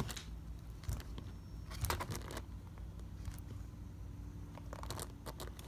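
Savannah monitor eating raw egg from a plastic bowl: scattered short wet smacks and clicks of its jaws and tongue in the egg, clustering about two seconds in and again around five seconds in.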